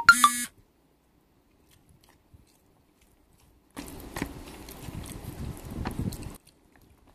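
A short, loud pitched toot ends within the first half second. After about three seconds of near silence comes close-up chewing of a mouthful of chicken and rice, with small clicks, lasting about two and a half seconds and stopping abruptly.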